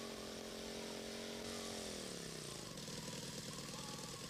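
Cartoon vehicle engine sound effect running at a steady pitch, then dropping in pitch about two seconds in as it slows to a low, even chugging idle.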